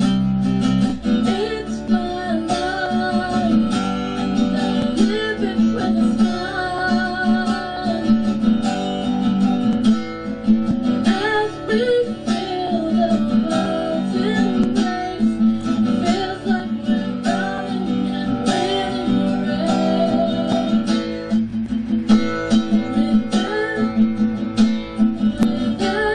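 Acoustic guitar strummed and picked through the chords of a song, with a sung melody wavering over it.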